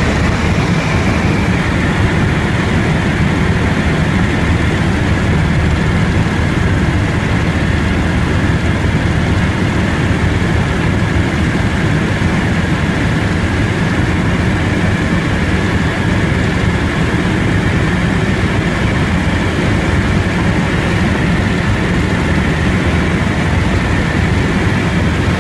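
Helicopter in flight: loud, steady engine and rotor noise that stays even throughout.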